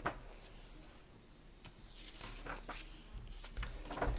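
Pages of a hardcover book being turned by hand: faint paper rustles and soft clicks, a few at a time, with a louder flutter of pages near the end.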